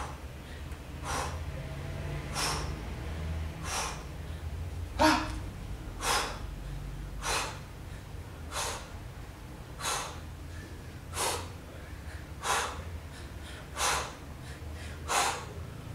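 A woman breathing hard in short, sharp puffs, one with each tricep dip, a little over one a second in an even rhythm.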